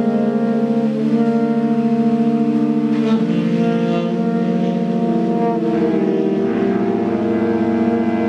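Several sustained instrument tones overlapping in a drone-like chord, with notes entering and dropping out every second or two and a pulsing waver between close pitches. Each note is set off by the installation's instruments reacting to coloured squares lifted by a hair dryer's airstream.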